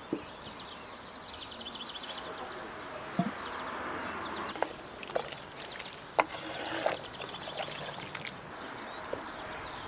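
Outdoor rural ambience with small birds chirping in short, rapid trills over a steady background hiss. A few sharp clinks of a ladle and dishes stand out in the middle of the stretch.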